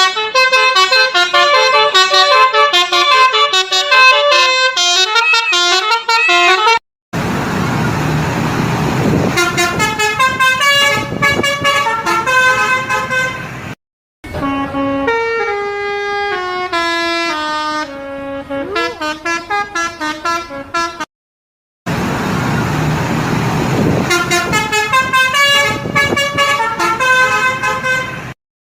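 Tour-bus 'telolet basuri' musical horns playing fast multi-note melodies, in four separate clips cut one after another. Under the second and fourth clips there is a low background noise.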